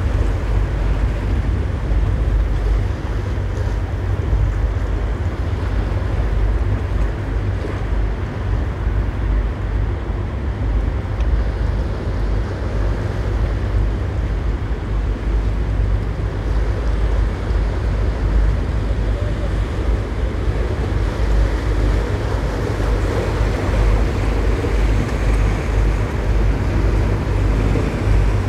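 Wind rumbling on the microphone over the wash of inlet water, with the low drone of a sportfishing boat's engines building toward the end as the boat passes close.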